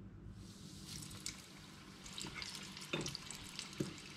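A battered strip of game-bird meat frying in a pan of oil at about 300°F: a quiet crackling sizzle that starts about half a second in. Two light knocks come near the end.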